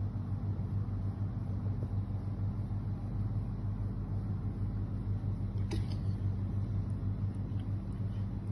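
A steady low hum with a rumble under it, and a single short click nearly six seconds in.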